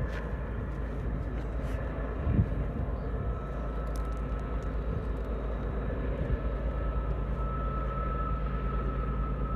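Union Pacific freight locomotives, an SD70ACe and a GE AC4400, working hard upgrade with a fully loaded train: a low, steady diesel rumble that grows slowly louder as the train approaches. A brief thump comes about two and a half seconds in, and a faint high steady tone comes in over the last few seconds.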